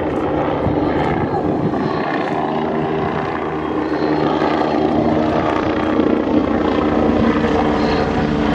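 Bo 105 twin-turbine light helicopter flying overhead in a display, its rotor and turbine noise steady and getting louder in the second half.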